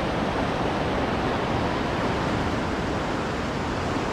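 Steady rush of a fast-flowing river, an even roar of water with no breaks.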